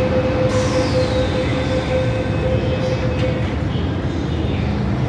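MTR M-Train electric multiple unit moving along the platform: a steady low rumble with a held mid-pitched tone that fades out about three seconds in, and a high whine that slides down in pitch from about half a second in.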